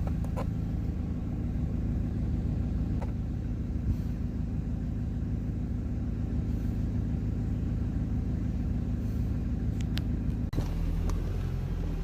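Off-road 4x4 engine running steadily in low range while climbing a rough uphill track, heard from inside the vehicle, with a few faint clicks and knocks. The low engine drone changes abruptly about ten and a half seconds in.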